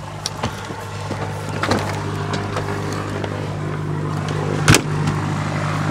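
Camera being handled and rubbing against fabric, with a few knocks and one sharp knock about three-quarters of the way through, over a steady low engine hum.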